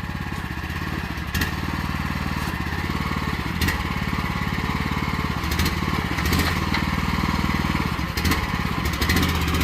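Predator 420 single-cylinder engine running steadily, driving the towable backhoe's hydraulics as the controls are worked, with a few brief knocks along the way.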